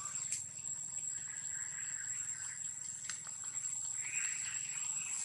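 Insects trilling steadily in the background: a high-pitched, unbroken tone with softer chirring patches, broken by two faint clicks.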